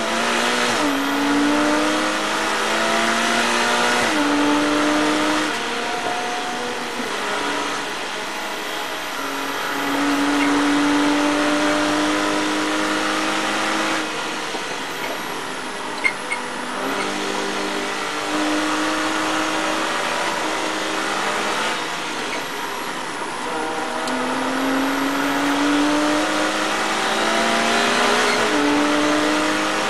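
Porsche Cayman race car's flat-six engine heard from inside the cockpit, pulling hard up through the gears. Its pitch climbs steadily and drops back at each gear change, several times over.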